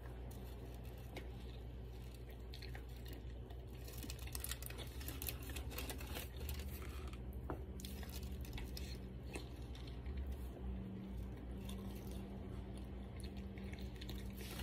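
Close mouth sounds of biting into and chewing a soft flour-tortilla burrito, irregular and getting busier about four seconds in, over a faint steady low hum.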